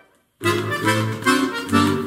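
Bayan (Russian chromatic button accordion) playing a festive medley: after a brief silent gap at the very start, the playing resumes about half a second in with melody over held chords.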